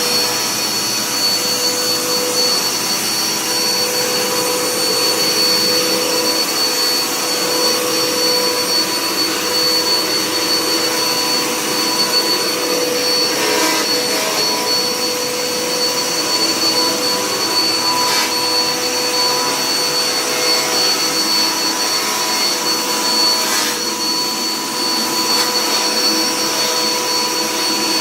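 Dirt Devil Power Max Pet bagless upright vacuum running steadily on a hardwood floor: a high, even motor whine over the rush of suction air.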